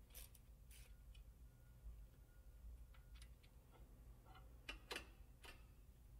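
Faint, scattered metallic clicks and clinks of a socket ratchet and nuts being handled while the nuts holding a motorcycle final drive to the swing arm are loosened and taken off. The loudest clicks come in a small cluster near the end, over a low steady room hum.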